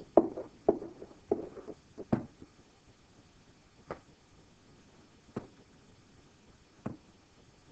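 Pen on an interactive whiteboard: quick taps and short strokes, several in the first two seconds as a number is written, then three single taps about a second and a half apart.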